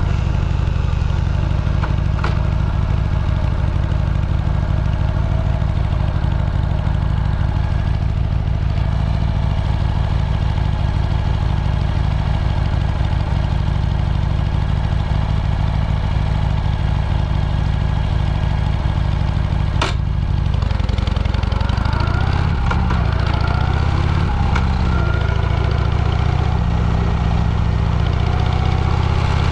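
A vehicle engine running with a loud, steady low rumble while under way. A sharp click comes about two-thirds of the way through, after which the engine note rises and falls as the speed changes.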